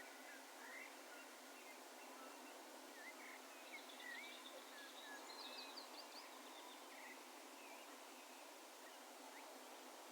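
Faint, distant birds calling: scattered short chirps and whistles, busiest in the middle with a quick run of high notes, over a soft steady hiss of open-field ambience.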